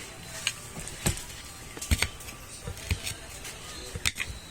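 Metal utensils clinking and knocking against dishes and pots: a string of sharp separate clicks, about one every half second to second, over a low background hum.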